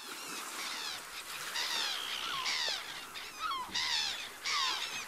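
Beach sound effect: gulls calling again and again in short falling cries over a steady hiss of surf.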